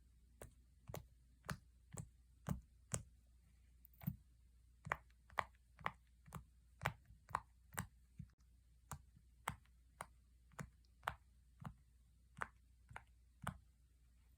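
A fidget toy being worked by hand: a string of sharp single clicks, roughly two a second at uneven spacing.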